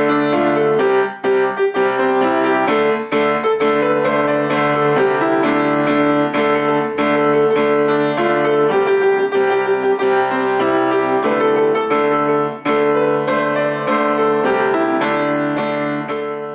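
Piano music, a steady stream of quickly struck notes with chords, fading out at the very end.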